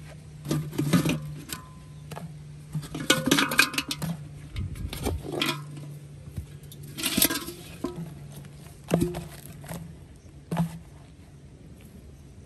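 Scattered knocks and clinks, in about six clusters, as bricks and plastic bottles are handled against and around a large aluminium cooking pot, over a low steady hum.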